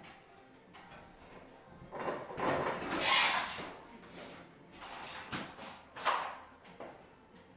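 Scraping and sliding of parts being handled while fitting a sectional garage door: one long scrape about two to four seconds in, then shorter scrapes and a sharp knock near the end.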